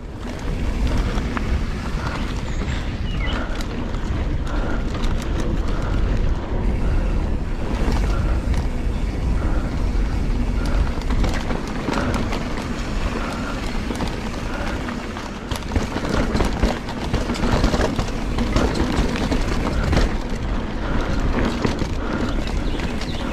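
Giant Trance 3 full-suspension mountain bike riding down a dirt singletrack: steady wind rumble on the action-camera microphone and tyre noise, with frequent short clacks and rattles from the bike over bumps and roots.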